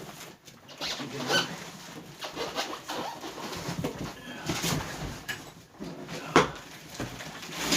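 A large empty cardboard box being handled and moved: irregular scraping, rustling and knocks, with a sharper knock a little over six seconds in.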